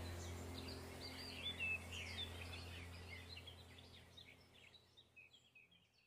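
Small birds chirping and trilling over a low steady hum, the whole sound fading out gradually.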